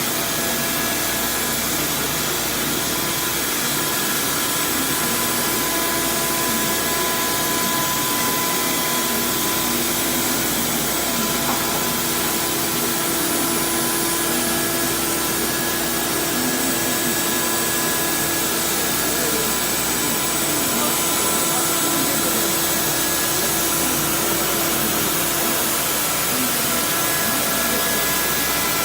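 CNC router spindle milling a white ABS plastic sheet: a steady spindle whine over continuous cutting noise, without a break.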